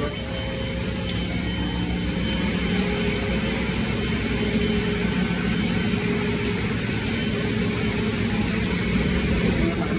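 Steady drone of heavy machinery under an even hiss of heavy rain, with no break.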